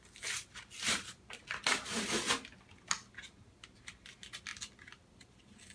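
Pokémon card blister pack being torn open by hand: a few rustling, tearing bursts of plastic and cardboard packaging in the first two seconds or so, then scattered faint crinkles and clicks.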